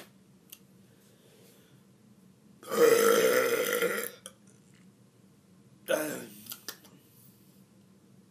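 A man burping deliberately: one long, loud burp lasting about a second and a half, then a brief, quieter sound a couple of seconds later.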